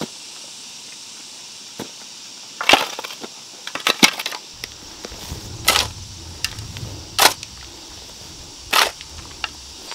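A series of sharp knocks or strikes, five of them spaced about a second and a half apart, with a faint low rumble starting about halfway through.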